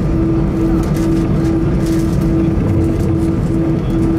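Airbus A320 cabin noise on the ground: a steady engine and air-conditioning rumble, with a hum that pulses on and off about twice a second and a thin steady whine above it.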